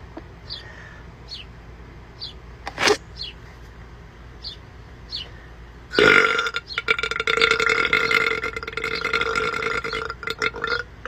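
A woman's long, deep burp, starting abruptly about six seconds in and held at a steady pitch for about five seconds.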